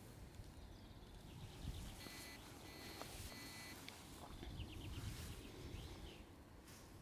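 Faint outdoor ambience with birds chirping in short repeated bursts, and a single light click about three seconds in.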